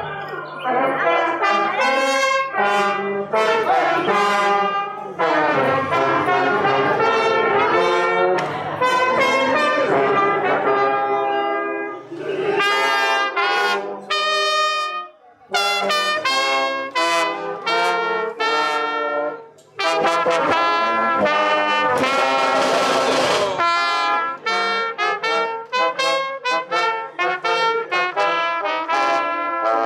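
Brass band music: a tune played in short, separated notes, with a few brief pauses between phrases.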